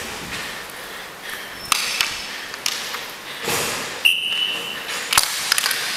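Sharp clacks of hockey sticks and puck on an indoor roller hockey rink, with a short high whistle blast just after four seconds in, the loudest moment.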